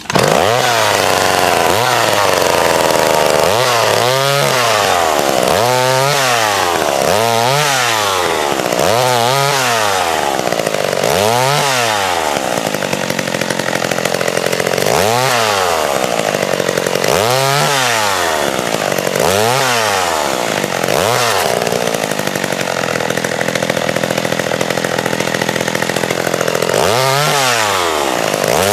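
Vintage two-stroke chainsaw cutting small branches into kindling, its engine revving up and falling back over and over, about once every one and a half to two seconds. In the latter half it holds a steadier high note for several seconds before the rev cycles come back near the end.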